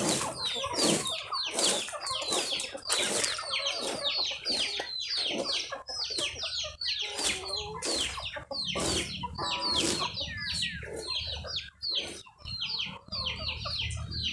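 Free-range village chickens clucking in a rapid string of short, falling calls, several a second. Under them, the scrape and swish of a fan rake sweeping dry straw across a dirt yard.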